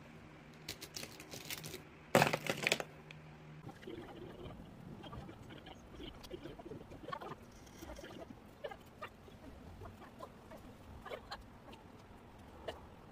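Sharpie marker tips scratching and flicking across drawing paper in short quick strokes, giving scattered light ticks. About two seconds in there is a brief louder rustle, and a low steady hum stops just before four seconds.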